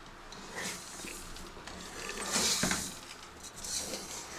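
Soft scraping and rustling in a cooking pot as sugar goes into frying chana dal paste, with a few light clicks and a brief louder hiss about two and a half seconds in.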